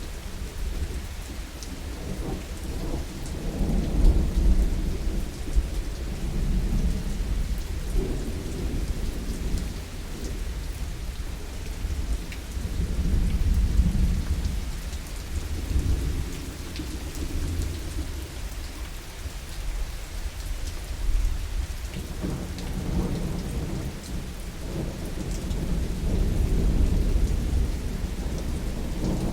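Heavy rain falling steadily, with rolling thunder rumbling low in repeated waves, swelling several times.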